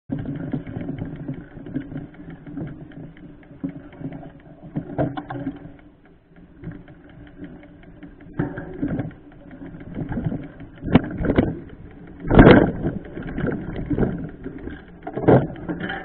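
Mountain bike riding over a rough forest dirt trail: a continuous rattle of the bike and its knobby tyre over the ground, with sharp knocks as it hits bumps, the loudest about twelve seconds in.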